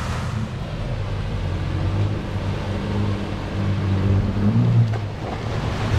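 Four-wheel drive's engine running steadily under load on an off-road track, its pitch rising briefly about four and a half seconds in as it revs.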